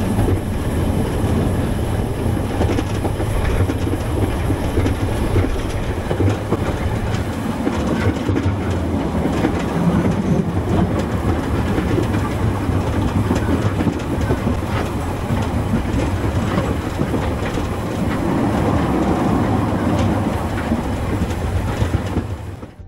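Narrow-gauge steam train running, its wheels clattering over the rail joints amid the steady noise of the moving train.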